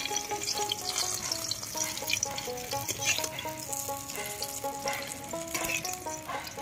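Batter-coated stuffed ash gourd fritters sizzling in hot mustard oil in a metal wok, with scrapes and taps of a metal spatula as they are turned and lifted out. A background music melody plays along with it.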